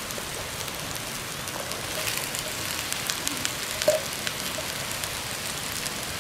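Onion and tomato frying in oil in a black iron wok over a wood fire, a steady sizzling hiss with small crackles. Partway through, sliced green vegetables go into the hot oil, and the crackles come thicker, with an occasional louder tick.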